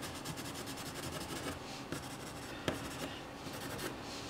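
A soft Caran d'Ache Luminance colored pencil scratching over Fabriano cold-press watercolor paper in many quick shading strokes, with a couple of sharper ticks partway through.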